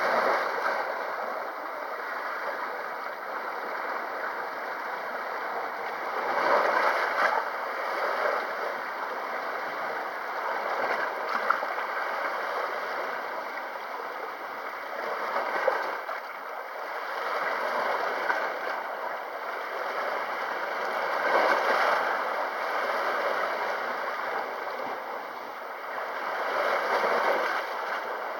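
Sea waves washing onto the shore: a continuous wash of water that swells every few seconds as each wave comes in and then falls back.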